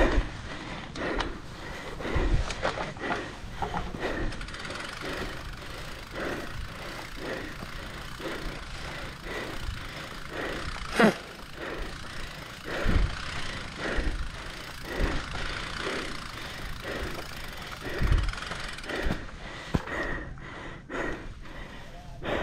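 A mountain bike rider panting hard in a steady rhythm, about two breaths a second, over the noise of the bike on a rough trail, with a few heavy thumps from bumps.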